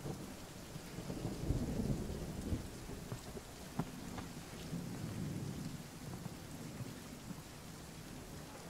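Steady rain with low rolls of thunder, swelling about a second in and again around five seconds in, and a few sharp drips in between.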